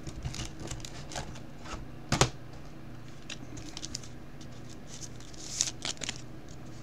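Clear rigid plastic top loaders and cards being handled: scattered light clicks and clacks, with a louder clack about two seconds in and a cluster of clicks and scrapes near the end, over a faint steady hum.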